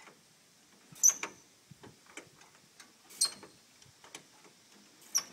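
Sharp metallic clicks and clanks of a 1926 Ford Model T's hand crank being worked: three loud ones with a brief ring, about two seconds apart, with fainter clicks between them. The engine turns over without firing.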